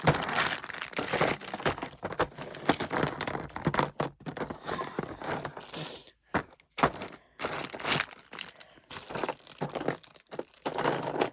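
Irregular crinkling and rustling of handled plastic, broken by several short silent gaps in the second half.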